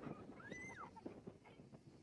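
A goat gives one faint, high bleat about half a second in, rising and then falling in pitch, with faint knocks around it.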